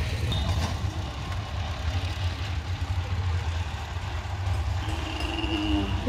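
An engine idling steadily with a low rumble. Near the end a short, held high tone sounds over it.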